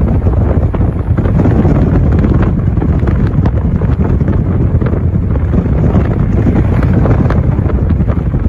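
Steady wind buffeting the microphone of a moving vehicle, with road noise underneath.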